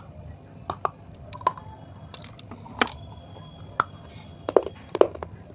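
Close-up crunching of dry baked clay being bitten and chewed: a string of sharp, irregular cracks, about ten in all, the loudest near the end.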